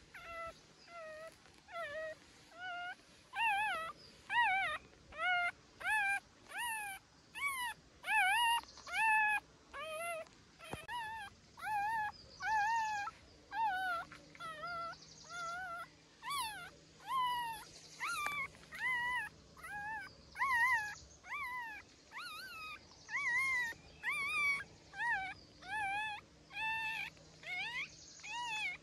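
A young puppy whimpering and crying over and over: short, high cries that rise and fall in pitch, about one and a half a second.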